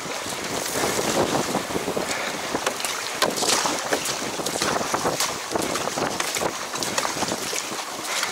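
Strong wind buffeting the microphone over the rush and slap of choppy water along a surfski's hull, with the splashes of paddle strokes coming through as repeated short hits.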